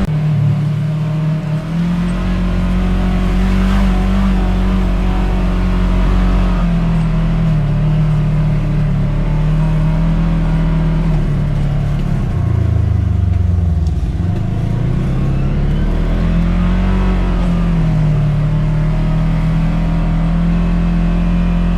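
Side-by-side UTV engine running while driving, its pitch wavering with the throttle. About twelve seconds in the engine note drops low for a couple of seconds, then rises again.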